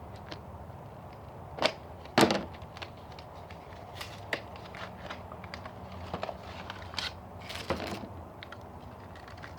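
Hands handling and opening toy-figure booster packaging: scattered plastic and cardboard crinkles and clicks, the loudest a pair of sharp snaps about two seconds in.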